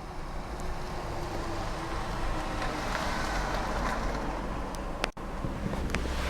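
Steady outdoor rumble with wind on the microphone, cut by a sudden brief dropout about five seconds in.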